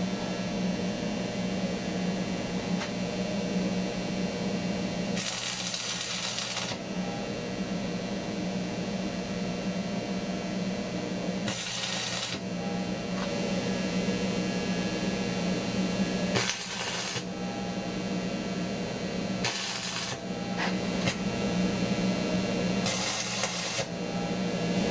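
A steady machine hum with several short bursts of hiss over it.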